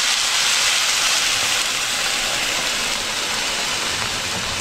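Water poured from a glass into a hot frying pan of fried meat and vegetables under a layer of rice, the first of the water for plov, sizzling with a loud steady hiss that eases a little toward the end.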